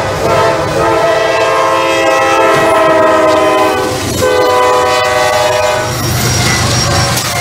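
Freight locomotive's air horn sounding a long chord, which breaks off briefly about four seconds in and sounds again until near the end. It then gives way to the rumble of the train rolling past.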